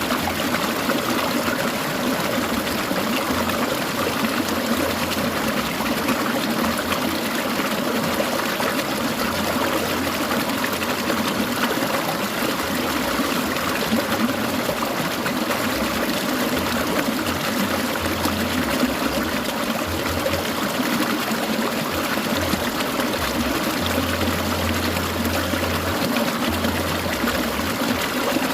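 Clear mountain stream trickling and splashing over rocks, a steady, even babble of water.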